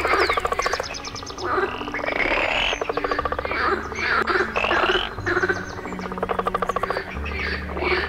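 A chorus of many frogs calling at once, in overlapping bouts of fast, pulsed croaks, with background music underneath.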